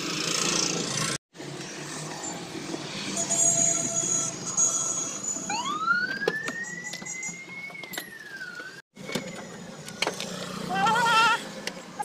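Light clicks and knocks of plastic dashboard trim and a screwdriver being handled, over a low hum. Midway a single high tone rises steeply, holds for a couple of seconds and then falls away, like a siren.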